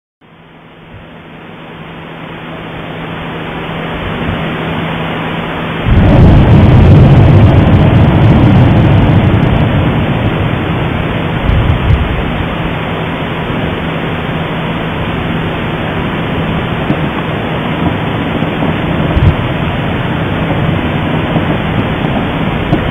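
Explosion at Popocatépetl volcano, heard through an amplified webcam microphone. A steady hiss with a low hum builds up, then about six seconds in a sudden loud boom turns into a long rumble that slowly fades. Scattered sharp ticks follow, from ballistic fragments hitting the slopes.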